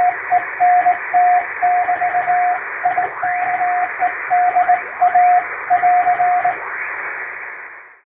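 Morse code (CW) tone, pitched at about 700 Hz, hand-keyed in dots and dashes over shortwave-style static and fading hiss, with a few faint rising whistles in the noise. These are the closing signs of a telegram, ending with the end-of-message sign AR (·—·—·). The keying stops about six and a half seconds in, and the static then fades away.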